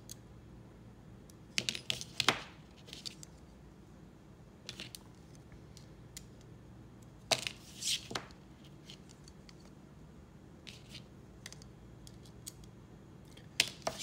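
Light metal clicks and clacks from a Zippy Diode balisong trainer being adjusted with a hex key and its handle test-swung against the blade, a few sharp ones about two seconds in, again around the middle, and near the end.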